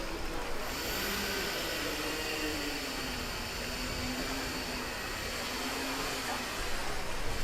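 Steady rushing noise of the Kali River Rapids raft ride, with faint wavering tones underneath.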